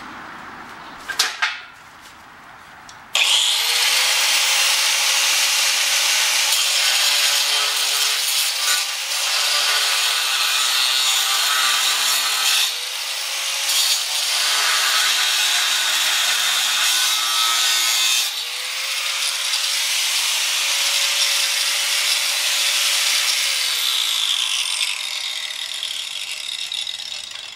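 Angle grinder grinding a rusty square steel tube: a loud rasping hiss over a steady motor whine, starting about three seconds in. It eases twice as the disc lifts off the metal, then the whine falls as the grinder winds down near the end.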